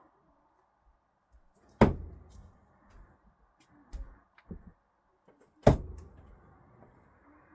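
Two thrown screwdrivers hitting the target about four seconds apart, each a sharp thunk with a short ringing decay, with a few softer knocks in between.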